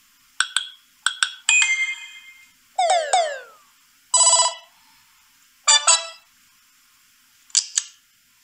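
Samsung Galaxy A41 preset alert tones playing one after another: brief electronic blips and chimes, two quick falling sweeps about three seconds in, and a short buzzy tone, each followed by a short silence.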